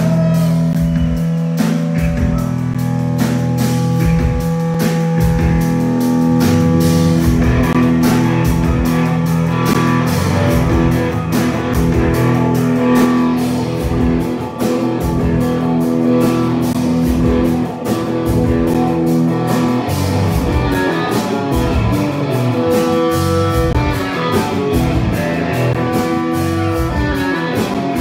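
Live rock band playing an instrumental passage: electric guitars over bass guitar and a drum kit, with steady kick drum and cymbal beats. Held notes give way to busier playing about two-thirds of the way in.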